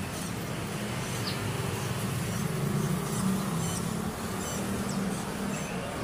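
Caged songbirds giving short, scattered chirps over a steady low hum.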